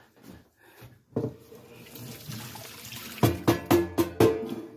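Dirty cleaning water poured out of an air fryer basket into a stainless steel sink, rushing and splashing from about a second in. In the last second and a half, several louder sharp knocks sound with a ringing tone.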